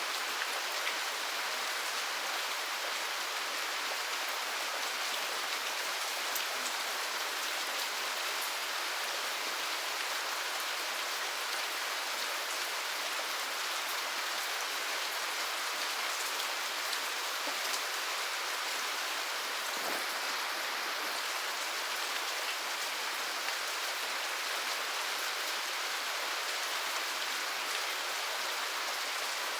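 Steady rain falling: an even hiss with faint, scattered drop ticks and no thunder.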